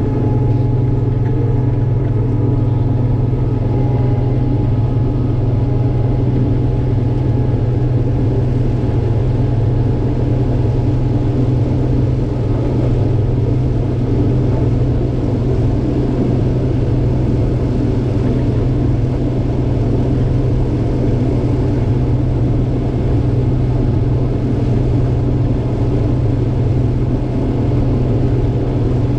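Combine harvester running steadily at a constant speed, its diesel engine a low, even drone with faint whining tones above it.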